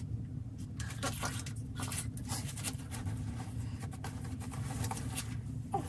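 Scattered soft rustles and light taps of hands and feet moving around a canvas on plastic sheeting, over a steady low hum.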